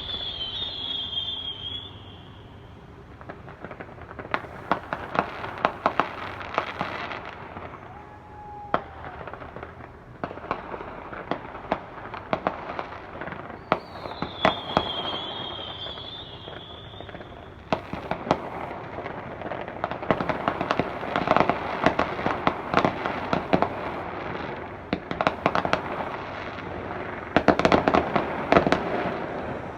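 Fireworks display: rapid bangs and crackling in dense volleys, with quieter gaps between them. A high, wavering whistle sounds twice, at the start and again about halfway through, and the heaviest cluster of bangs comes near the end.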